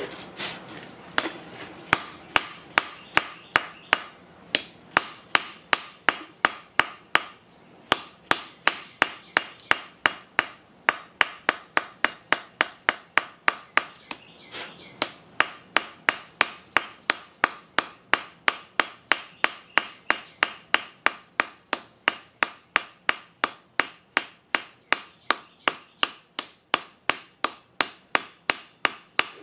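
Hand hammer striking red-hot steel held in tongs on a block of mild steel used as an anvil, in a steady rhythm of about three blows a second, each with a short metallic ring. The blows draw out a tapered point on the bar, and the hammering stops briefly about halfway.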